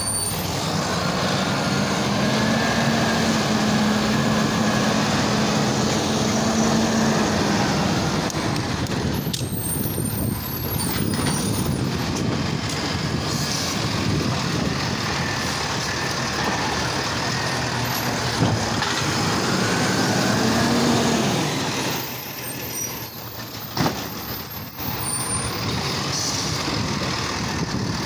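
Automated side-loader garbage truck running as its hydraulic arm lifts and dumps a cart. A hydraulic whine rises about a second in and holds for several seconds, then returns briefly later, with a couple of sharp knocks near the end.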